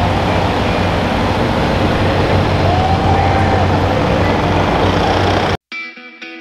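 Turbocharged International pulling tractor's diesel engine running steadily and loudly, with a short whistle-like tone about three seconds in. Near the end it cuts off abruptly, and electric guitar music starts.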